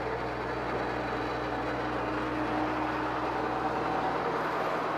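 Farm machine's engine running steadily, a constant mechanical hum. The deepest part of the hum drops away about four seconds in.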